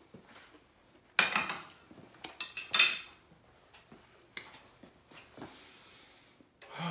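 Ceramic plate, bowl and fork clinking and clattering as they are set down on a hard surface: a burst of clatter about a second in and the loudest clinks near three seconds in, then a few faint knocks.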